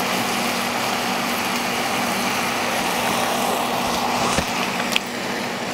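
Empanada filling sizzling steadily in a sauté pan on the burner, easing off slightly near the end, with a faint low hum underneath. A couple of light clicks near the end.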